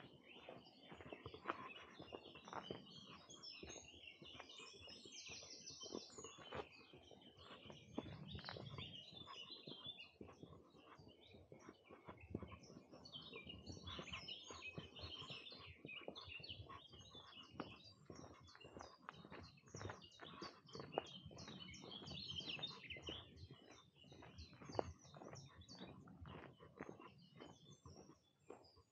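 Spring birdsong, with several small birds chirping and singing continuously, over soft, irregular footsteps on a path.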